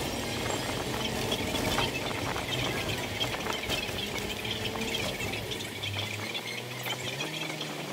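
Bus ride and city street traffic noise, sped up to about four times normal speed so that it comes out as a busy, chattering jumble of high chirps and ticks over a steady rush.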